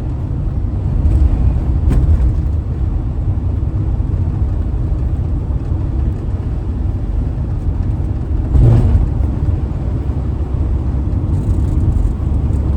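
Camper van driving at road speed: a steady low rumble of engine and tyre noise. A short knock comes about two-thirds of the way through.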